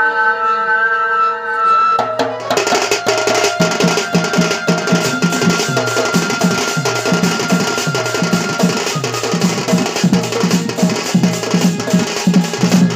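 A held sung note ends about two seconds in, then dhol drums break into a fast, pounding dance rhythm for a Sambalpuri danda dance, with a thin steady high note held over the drumming for several seconds.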